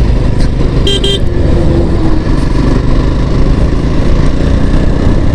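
Jawa 42 motorcycle's single-cylinder engine pulling along at road speed, under a steady rumble of wind on the microphone. A vehicle horn beeps twice, briefly, about a second in.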